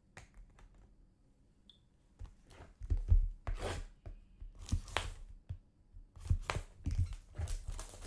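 Packaging being torn open by hand: after a quiet start, a series of ripping and rustling sounds with a few sharp knocks begins about two seconds in.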